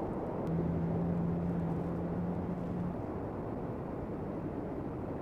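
Steady low rumble of vehicle traffic and wind. A single low steady hum sounds over it for about two and a half seconds, starting about half a second in.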